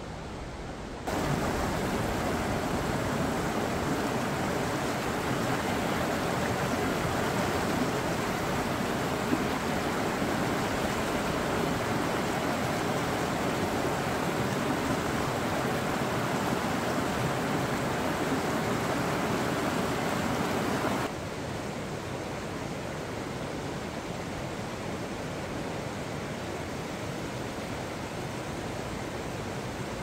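Shallow mountain stream rushing steadily over rocks and a low weir. The rushing gets louder about a second in and drops back about two-thirds of the way through.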